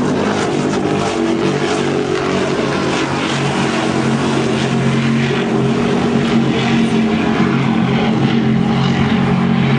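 Offshore racing powerboat engines running flat out as the boat speeds across the water: a steady, deep drone.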